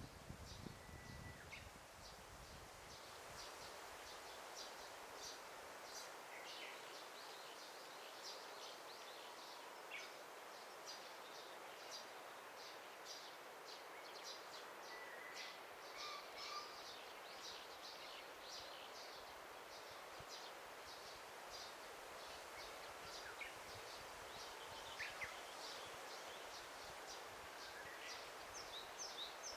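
Daytime forest ambience, faint: birds calling, with many short high chirps at an uneven pace and a few brief whistled notes now and then, over a soft steady hiss.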